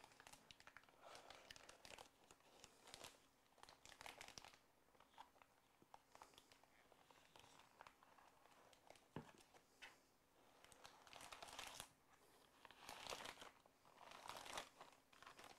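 Faint crinkling of a plastic Ziploc bag being handled and pulled over a bowl, in short rustles that come and go.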